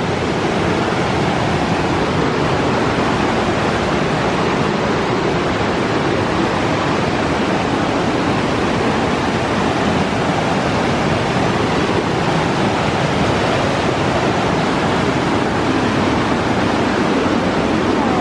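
Whitewater rapids on the Nolichucky River rushing, a loud, steady, unbroken wash of water.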